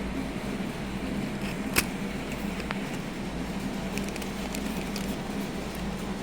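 Steady room hum from a running appliance or fan, with one sharp click about two seconds in and a few faint clicks and taps later.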